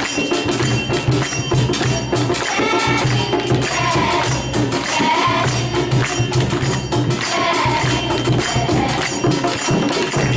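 Song performance with jingling, tambourine-like percussion struck on every beat, over a steady low drone, with singing voices coming in a few times.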